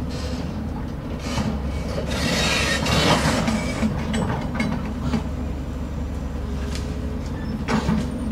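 Crawler excavator's diesel engine running steadily as the machine swings its boom, with scattered metallic clanks and squeaks from the linkage and a louder rushing swell about two to three seconds in.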